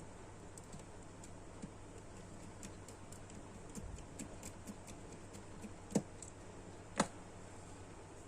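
Light clicks and taps from small plastic figure parts and tools being handled during a repair, with two louder sharp clicks about a second apart in the second half, over a steady low hum.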